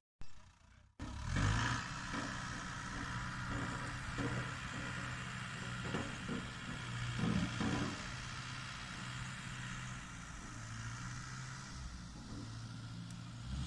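Tractor engine running steadily, heard from across the field, after about a second of near silence at the start.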